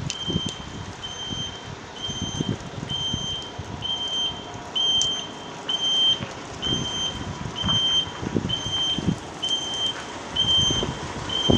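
An electronic beeper sounding a steady high beep about once a second, each beep about half a second long, with irregular low knocks and thuds underneath.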